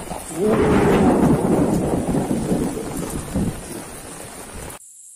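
Heavy rainstorm with strong wind on the microphone: a loud rumble swells about half a second in and dies away over the next few seconds over the steady rain. The sound cuts off abruptly near the end.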